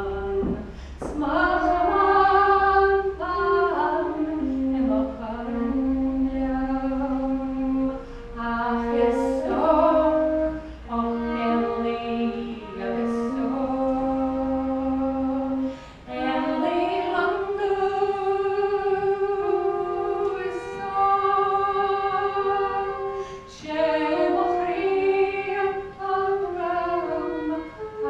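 A woman singing a slow Gaelic song, holding long notes and sliding between them, with a flute playing along.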